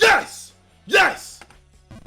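A meme sound effect: two short, sharp hits about a second apart, each with a quickly falling tone.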